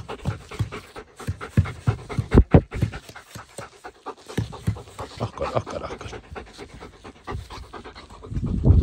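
Dog panting close by, quick and rhythmic, a few breaths a second. A brief louder low rumble comes near the end.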